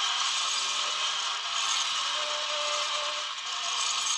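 A vinyl 7-inch single played by a hand-held needle and paper cone on a spinning potter's kick-wheel: a thin, scratchy sound, mostly steady surface hiss and crackle with little bass, with only faint traces of the recorded music.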